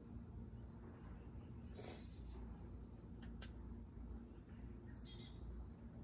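Faint high wild-bird chirps: a few short calls about two and a half seconds in and another falling call near five seconds, over a steady low background rumble.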